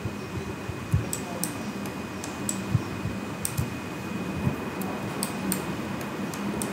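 Scattered computer mouse clicks, a dozen or so short, sharp ticks at irregular intervals, over a steady room hum with a thin high whine.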